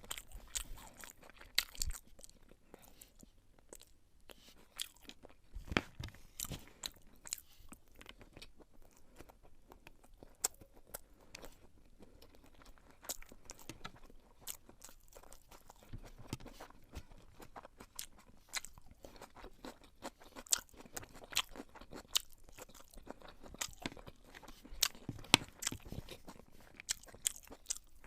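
Close-miked chewing and mouth sounds of a person eating beef pilau, a spiced rice and beef dish: a steady, irregular run of sharp crunchy clicks and smacks.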